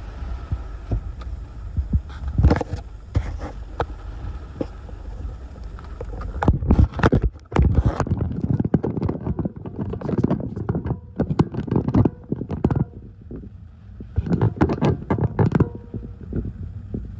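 Hurricane wind gusts and rain buffeting the phone's microphone: a low rumbling wind noise with bursts of crackling, coming in strong gusts about six to eight seconds in, again from about ten to thirteen seconds, and briefly near the end.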